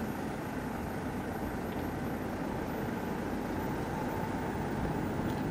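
KingTech K80 model jet turbine of a radio-controlled Rafale running at taxi power: a steady rushing noise with a thin, very high whine that climbs slightly near the end.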